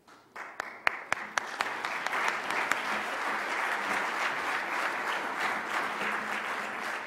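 Audience applauding: a few separate claps come in about half a second in and quickly fill into steady, dense applause.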